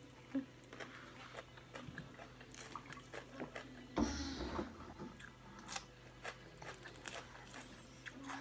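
Close-up chewing and crunching of raw vegetables, with many small crunches and one louder crunch about four seconds in.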